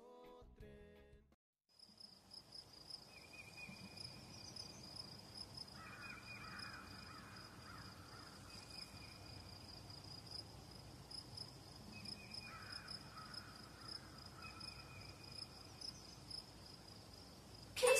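Faint ambience of an insect trilling steadily at a high pitch, coming in about two seconds in, with a bird calling a couple of times behind it.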